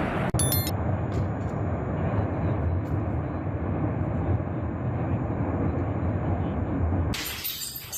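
Volcanic eruption on La Palma heard from close by: a steady, deep roar. It breaks off for an instant near the start and drops away about seven seconds in.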